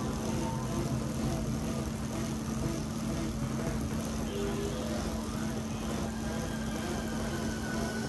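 Bicycle tyres spinning on Tacx rollers as the rider pedals, a steady whirring drone with a constant low hum.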